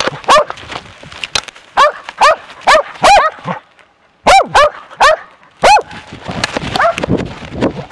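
A hunting dog baying a bear: a rapid run of sharp, high barks, very close to the microphone, with a short break about four seconds in. Noisier scuffling and fainter barks follow near the end as the dog moves through the brush.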